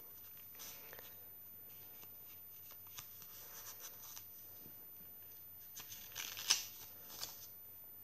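Paper rustling and light flicks as the pages of a chunky paper junk journal are turned and tucked-in cards are lifted, with a louder rustle about six and a half seconds in.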